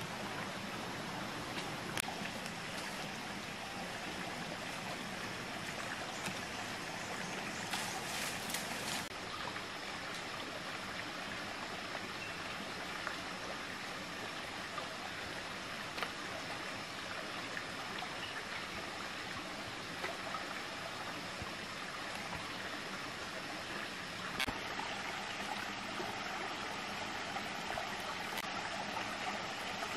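Small rocky forest stream flowing and trickling steadily, with a few faint clicks.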